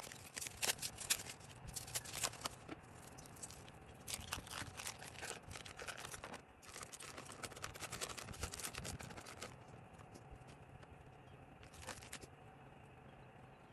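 Foil wrapper of a cream cheese block crinkling and tearing as it is peeled off by hand: a dense run of crackles for the first nine seconds or so, then only a few scattered crinkles.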